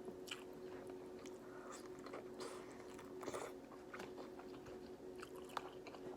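Close-miked chewing and biting into seafood-boil food, with small wet mouth clicks and a few brief crunchy bursts.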